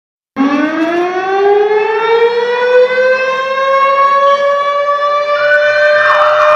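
A siren winding up: a loud wail that starts suddenly, rises slowly in pitch and then levels off. Near the end a second, higher tone and a rougher noise join it.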